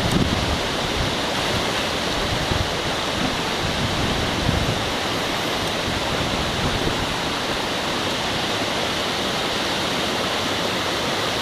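Mountain stream water rushing steadily over rocks. There are a few low rumbles in the first several seconds.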